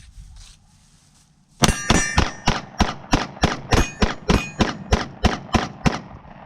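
Glock pistol fired rapidly in a mag dump: a quick string of about fifteen shots, roughly four a second, starting about a second and a half in and stopping near the end as the 15-round magazine runs empty.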